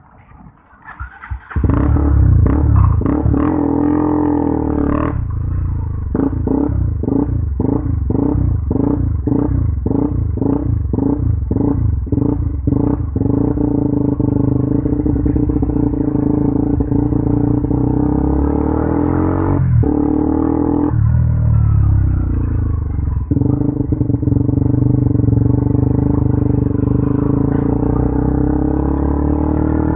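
KTM Duke 200's single-cylinder four-stroke engine through an aftermarket Akrapovic exhaust, opening up about a second and a half in and then running under load as the bike is ridden, its pitch rising and falling with engine speed. The sound cuts out briefly twice near the middle.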